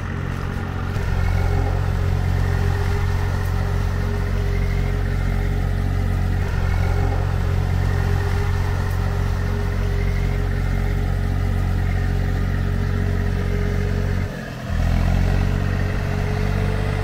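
An engine running steadily. It dips briefly about fourteen seconds in, then comes back and rises a little in pitch.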